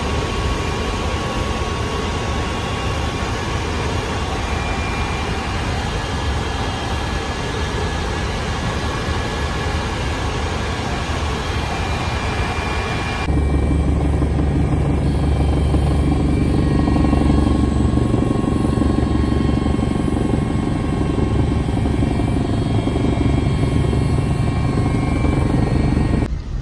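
Helicopter engine and rotor droning steadily, heard from inside the cabin. About halfway through it shifts abruptly to a louder, deeper drone.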